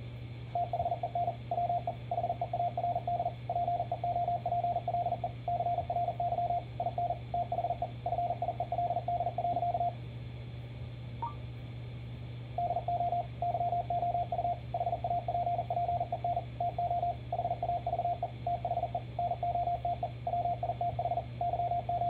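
Morse code practice tone at 40 words per minute: a single-pitch sidetone keyed in rapid dits and dahs, in two runs of about nine seconds each with a pause of about two and a half seconds between, over a steady low hum.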